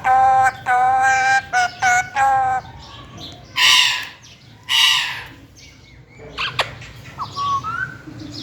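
Green parrot calling: a quick run of clear, pitched calls, then two harsh screeches, then a few faint short chirps.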